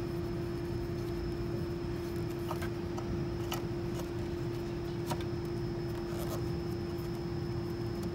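A machine running steadily: a constant hum with a faint high whine over a low rumble, and a few light clicks.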